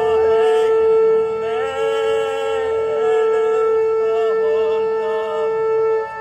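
A long, steady shofar blast held on one note, breaking off briefly near the end and sounding again. Over it a voice sings in a wavering, sliding line that fades out before the blast breaks.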